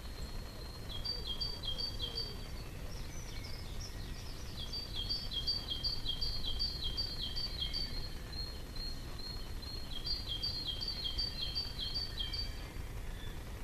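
A small songbird singing a quick, high phrase of two alternating notes, repeated over and over in three runs, over a steady low background rumble.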